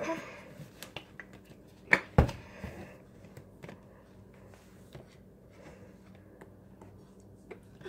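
Handling noise: light clicks and taps as a plate is moved about close to the microphone, with two sharper knocks about two seconds in, over a faint steady low hum.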